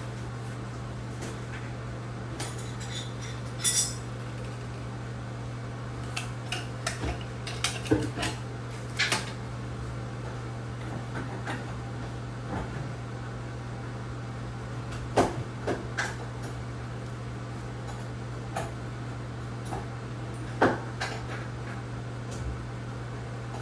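Scattered metallic clinks and knocks of tools and plumbing parts being handled during a tub spout install, over a steady low hum.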